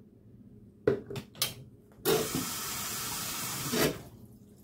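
A few light knocks, then a kitchen tap runs in a steady stream for about two seconds and is shut off.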